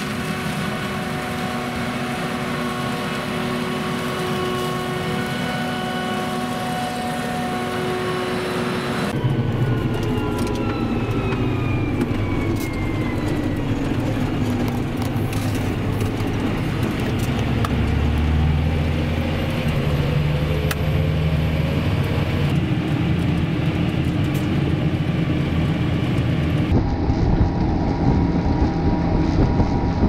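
Self-propelled forage harvester chopping maize, with its engine and chopper giving a steady drone and several steady whining tones. About nine seconds in the sound cuts to a tractor's engine heard from inside the cab, a low rumble with a whine that falls in pitch. Near the end it cuts to a tractor driving on a road, engine and tyre noise.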